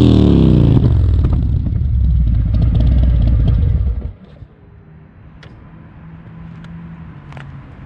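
Harley-Davidson Road Glide's V-twin engine through Vance & Hines 4.5-inch high-output mufflers, a deep sound falling back from a rev to idle, then switched off suddenly about four seconds in. A few faint clicks follow.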